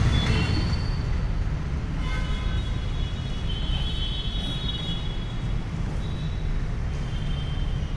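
Steady low rumble of road traffic, with faint held tones above it from about two seconds in.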